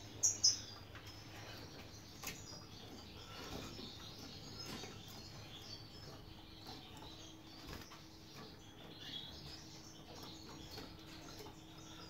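Caged European goldfinches calling: two loud, high chirps about half a second in, then scattered soft twittering chirps over a faint steady hum.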